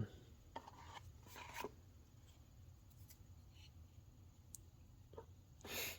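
Faint rubbing and light clicks as a newly cut replacement lens is pressed into an Oakley Juliet sunglasses frame, with a short louder rub near the end.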